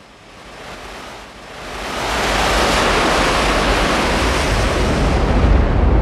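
A wind-like whoosh sound effect: a rush of noise that swells over the first two seconds, then holds loud, with a low rumble building beneath it toward the end.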